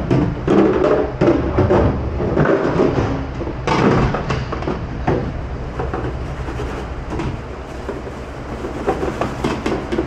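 Stainless-steel hotel pans knocking and scraping against each other and the metal sink as they are scrubbed in soapy water, with irregular clanks over a steady low hum of kitchen machinery.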